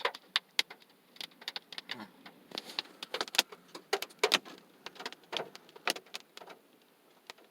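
Big scattered raindrops striking the car's roof and glass, heard from inside the car as irregular sharp taps, a few a second.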